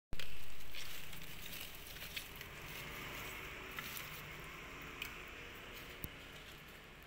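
Hands rubbing and turning wet lettuce and leafy greens in a plastic colander: soft wet squishing and rustling with a few scattered small clicks. Loudest just after the start, then settling to a lower level.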